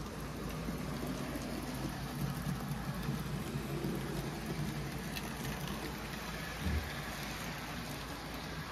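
Model steam locomotive and passenger cars rolling along the layout track, a steady hissing rumble of wheels on rail with a few faint ticks, and one short low thump about two-thirds of the way through.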